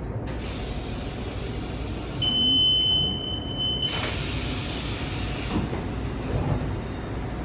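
Taiwan Railway EMU800 electric multiple unit at a standstill: a steady, high electronic beep sounds for about two seconds, then a hiss and a few knocks as the side doors slide open.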